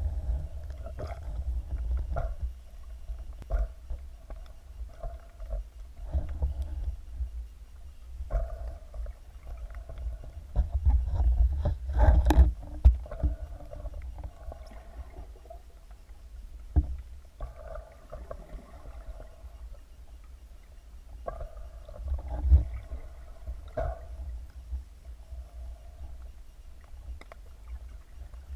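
Muffled underwater rumble picked up by a camera in its waterproof housing as the diver moves through the water, with scattered knocks and clicks; the loudest knock comes about twelve seconds in.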